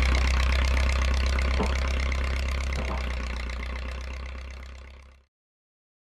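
1974 Case 450 crawler dozer engine idling steadily, fading out and cutting to silence about five seconds in.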